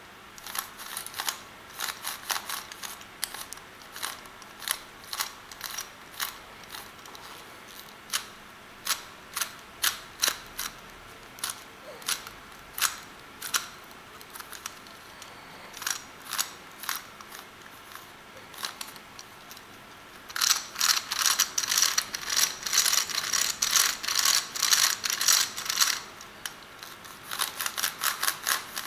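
White plastic gear cube puzzle turned by hand, its gear teeth clicking as the faces rotate. At first there are single clicks about a second apart. About two-thirds of the way in comes a louder, rapid run of clicking lasting several seconds, and a shorter run follows near the end.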